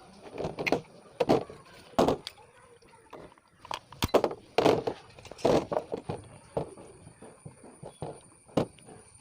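Irregular metal knocks and clinks of tools and parts while the clutch sprocket is worked off a two-stroke chainsaw's crankshaft.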